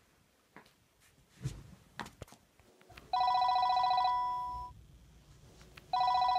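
Desk telephone ringing with a warbling electronic trill. One ring of about a second starts about three seconds in, and a second ring starts near the end. A few soft knocks come before the first ring.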